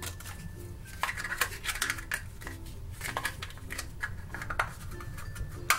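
Hard plastic pieces of a My Little Pony Stackems toy box clicking and scraping as they are handled and fitted together, with a sharper click near the end.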